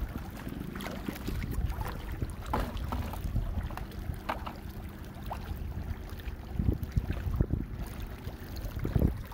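Wind rumbling on the microphone, with scattered short knocks and clicks, a few louder ones near the end.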